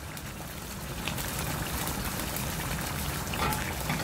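Arbi gosht (taro-and-mutton curry) simmering in a pot on medium heat: a steady bubbling with a few soft pops.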